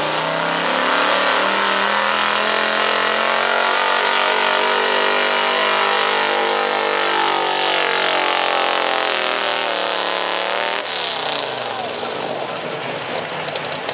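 1980s Ford F-series 4x4 pickup's engine at full throttle, pulling a weight-transfer sled, high in the revs. Its pitch sags slowly as the sled's load builds, then drops suddenly about eleven seconds in as the throttle closes.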